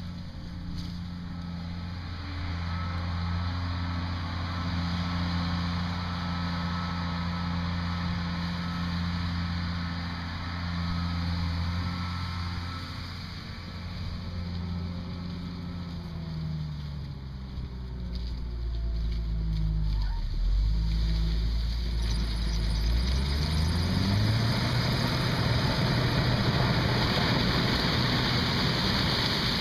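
Case IH 2588 combine running with a steady engine note; a little past halfway the pitch falls sharply, holds low for a few seconds, then climbs back up, and a louder rushing machinery noise builds through the last part.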